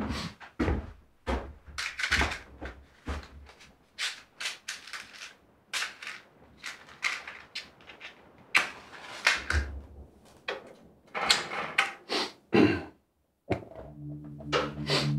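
A quick, irregular run of knocks and clatters, like objects being handled and bumped around in a small room. Near the end it stops for a moment, and a sustained low ringing musical tone begins.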